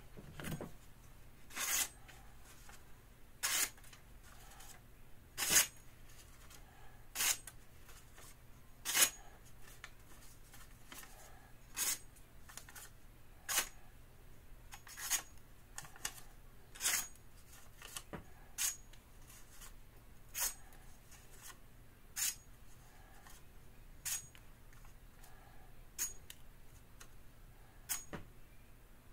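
Freshly sharpened santoku knife slicing pieces off a strip of notebook paper: a short, crisp cutting sound roughly every two seconds, some sixteen in all, a paper-cutting test of the new edge.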